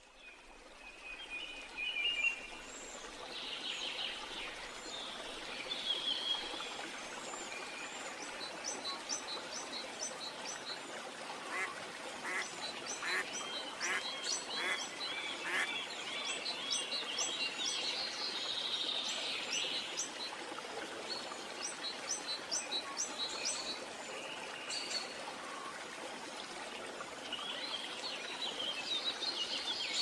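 Wild birds calling and chirping over a steady outdoor hiss, with runs of quick repeated notes.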